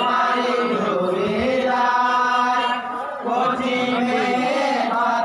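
Men chanting a jari gaan, the Bengali Muharram lament song, with long held notes near the middle and a brief dip about three seconds in.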